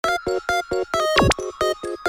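Upbeat electronic intro music: short synth notes, about four a second, with a quick falling and rising sweep about a second in.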